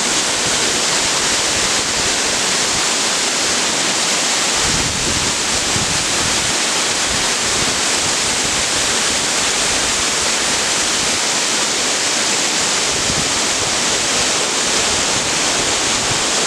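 Water of the Amicalola Falls cascade rushing down close by, a loud, steady rush of water noise.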